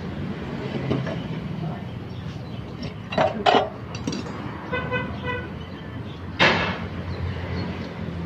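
Sharp metal knocks and clanks as a red tube housing is taken off a small engine's studs: two close together, then a louder one a few seconds later. Between them comes a short pulsing toot from a horn, over a steady low hum.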